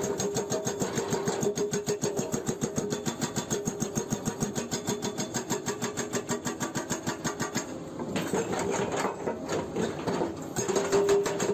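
Excavator-mounted hydraulic breaker hammering rock in rapid, even blows, over the steady note of the excavator's engine and hydraulics. The blows soften for a couple of seconds about eight seconds in, then pick up again.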